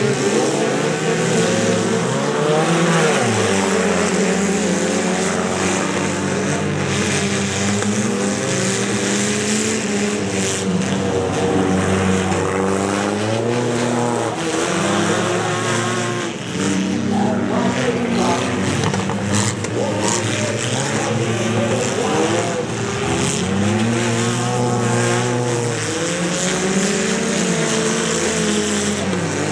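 Several small derby cars' engines revving up and down over one another, with a few crunching impacts as the cars ram each other.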